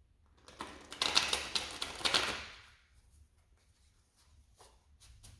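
A deck of cards being shuffled: a rapid run of papery clicks and riffles lasting about two seconds, followed by a few faint taps near the end.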